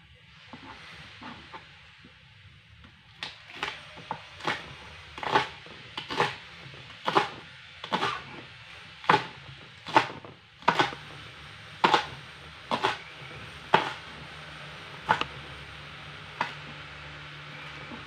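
Knife chopping spring onions on a cutting board: sharp strikes of the blade on the board, roughly one a second and unevenly spaced, starting about three seconds in and stopping near the end.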